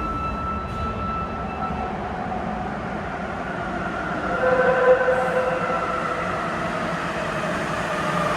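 Tōhō Line subway train pulling out of the station: a steady rumble, with its motor whine climbing slowly in pitch from about four seconds in as it accelerates. A steady high tone stops about two seconds in.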